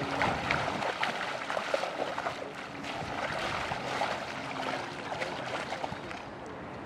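Shallow water splashing and sloshing as a person and a dog wade and crawl through it, with many small splashes. The splashing is busier for the first five seconds and calmer near the end.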